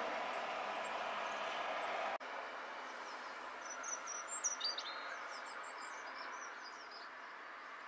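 Steady background noise that breaks off suddenly about two seconds in, then a small garden bird's quick high chirps and twitters around the middle.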